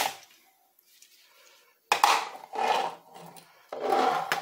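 A sharp click, then rubbing and knocking as a desktop motherboard is lifted and turned over on the workbench, in two stretches about two and four seconds in.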